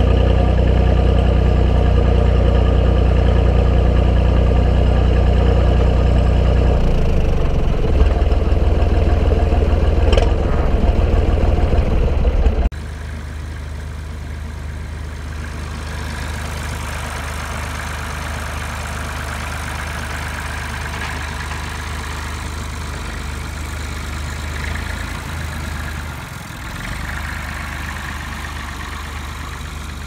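Marshall 132 tractor engine running steadily close to the microphone, its low note changing and fluttering about seven seconds in. About halfway through it cuts abruptly to a quieter, steady engine hum.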